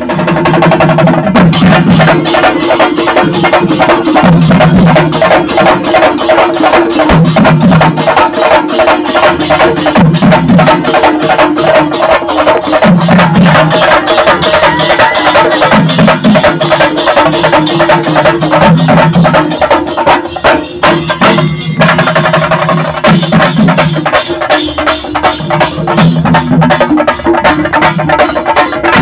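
Loud music driven by fast, dense drumming, over a low bass figure that repeats about every second and a half.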